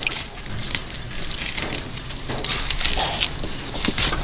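Wild kudzu root being torn apart by hand: its stringy fibres rip and snap in a close, continuous run of small crackles.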